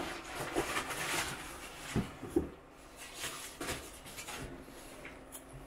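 Cardboard shipping box being handled off camera: rustling, then a few light knocks partway through.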